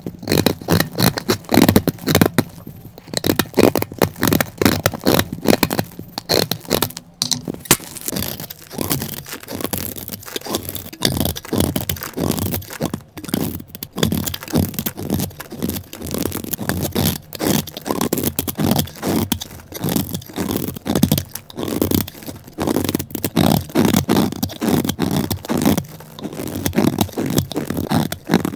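Dry soap being crushed and scraped: a dense, irregular run of crisp crunches and scrapes, several a second.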